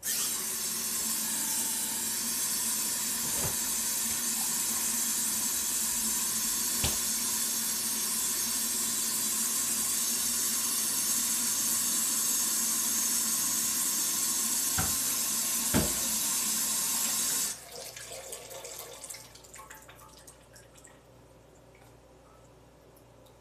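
Kitchen tap running steadily with a few knocks in the sink, then turned off abruptly; a few light clinks follow.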